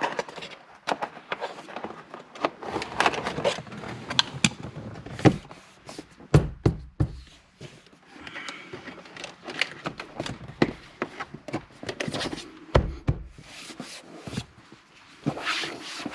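Plastic interior trim and wiring being handled and pressed into place: a run of irregular clicks, taps and rustles, with a few heavier thunks.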